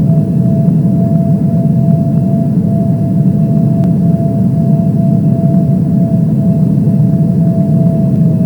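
Steady drone of an airliner cabin in flight: engine and airflow noise, deep and unbroken, with a thin steady hum from the engines riding on top.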